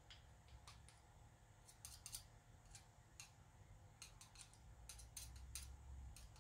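Near silence with faint, irregular clicks and light taps, a dozen or so, from small starter-motor parts being handled and greased on the workbench.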